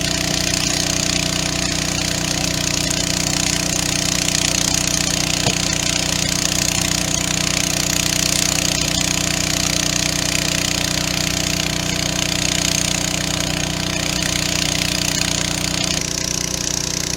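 Engine of a water pump running steadily at constant speed while pumping water through hoses to fill the AquaDam.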